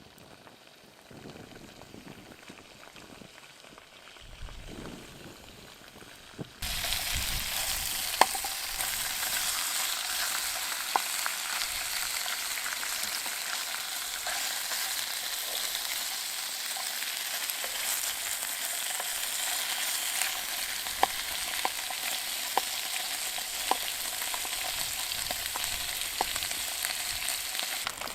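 Food frying in a pan on a small wood-burning stove. A steady sizzle starts suddenly about a quarter of the way in and carries on, with scattered sharp pops.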